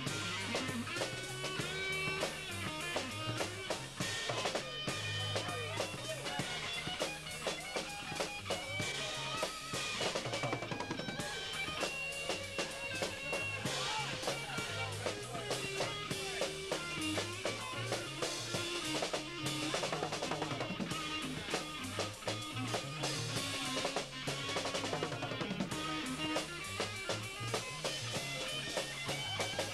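A rock band playing live: guitar over a drum kit keeping a steady beat.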